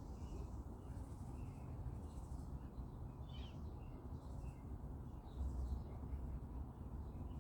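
Small birds chirping faintly in short, repeated calls, with one brighter falling call about three and a half seconds in, over a steady low rumble that swells briefly about two-thirds of the way through.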